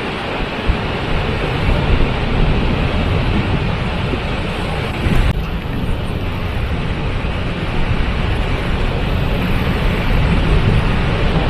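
Waterfall: falling water making a loud, steady rush, heaviest in the low end, with a slight shift in its tone about five seconds in.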